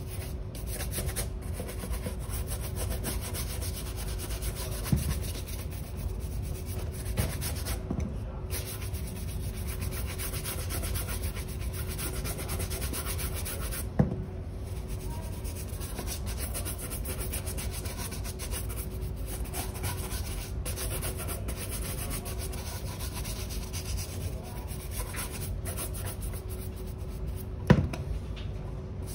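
A bristle shoe brush scrubbing quickly back and forth over the leather upper of a dress shoe, a steady fast rubbing, broken by a few sharp knocks, the loudest near the end.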